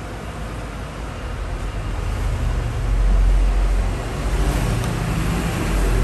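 Sunhouse induction cooktop running under a steel pot: a steady low hum with fan-like hiss, swelling louder about three seconds in.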